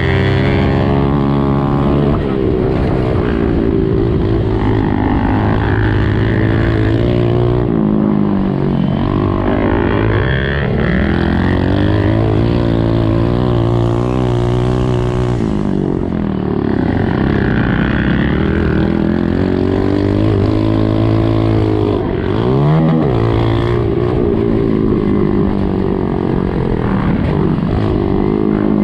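Honda CRF125F's single-cylinder four-stroke engine heard on board at race pace, its pitch repeatedly climbing and dropping as the throttle is opened and closed through the course, with a quick sharp rev a little past the middle.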